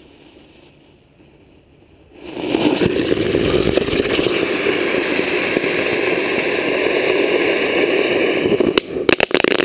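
Jumbo jumping jack firework burning: about two seconds in it ignites into a loud, steady, rushing hiss that lasts about six seconds, then breaks into sputtering pulses near the end as it burns out.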